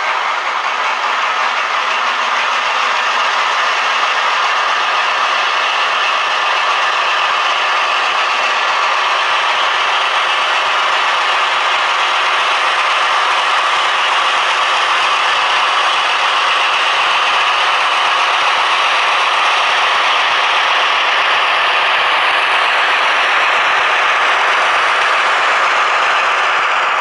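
Model train running along the track: a steady, unbroken mechanical rattle of wheels and gear drive.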